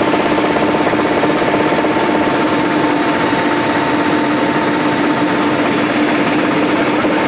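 Military helicopter's turbine engines, main rotor and transmission running steadily in flight, heard from inside the cockpit: a loud, even drone with a steady high whine over it.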